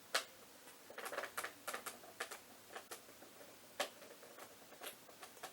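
A stiff container lid being forced: a series of irregular clicks and crackles as it is worked at, then a loud sudden pop right at the end as it gives way.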